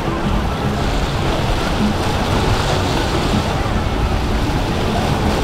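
Steady rush of churning water and wind on the microphone, with a yacht's engines running underneath.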